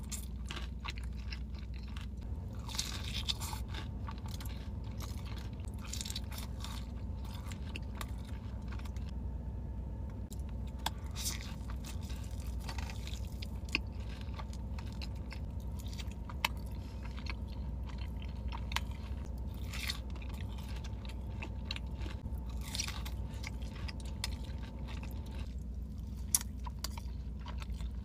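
Close-up eating of breaded fried chicken dipped in ranch: crunchy bites and wet chewing, with many short crackles scattered throughout. A steady low hum runs underneath.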